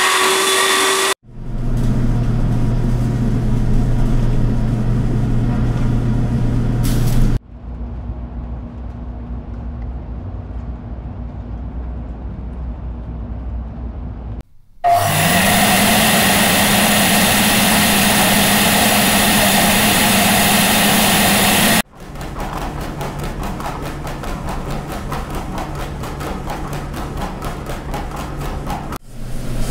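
Industrial dough mixers running: a steady motor hum and whir in several stretches that cut off abruptly, one beginning with a short rising whine about halfway through.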